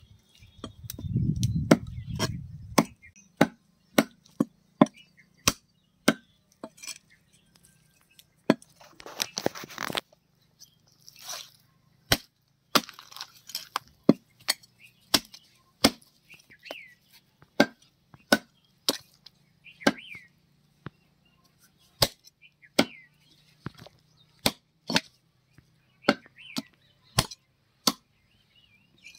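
Heavy cleaver chopping a country chicken into pieces on a wooden tree-stump block: a long run of sharp, separate chops, roughly one or two a second with short pauses. A low rumble runs through the first couple of seconds.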